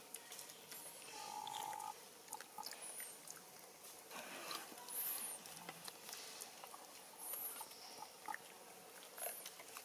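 Faint outdoor ambience: scattered small clicks and rustles, with a few short high chirps about every two seconds and a brief steady tone about a second in.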